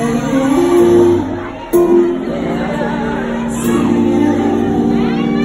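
Live concert music played through an arena sound system: sustained keyboard chords that change every second or so, with a woman singing in sliding runs over them, heard with the hall's echo.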